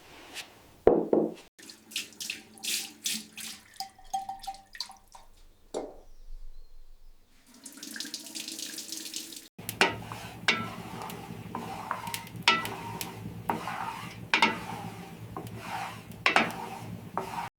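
Water from a tap running and splashing in a sink, with short knocks and clatter of things being washed; the sound changes abruptly a few times, with a steady stream of running water in the middle.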